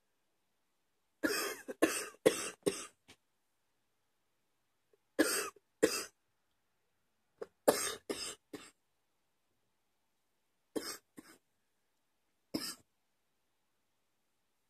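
A woman coughing in fits: a run of about five sharp coughs near the start, then bouts of two or three coughs every few seconds, ending on a single cough.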